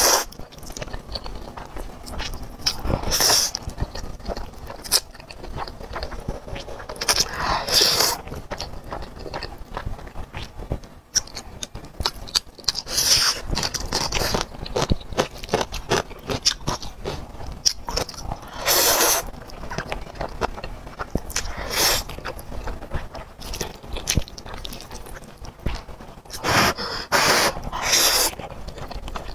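Close-miked slurping of black bean sauce noodles (zhajiangmian). About eight long, noisy slurps come a few seconds apart, with wet chewing between them.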